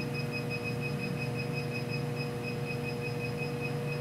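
Rapid, even train of short high beeps, about seven a second, from a Bacharach refrigerant monitor's remote display keypad as its arrow key is held down to step the trend-data cursor. A steady machinery hum runs underneath.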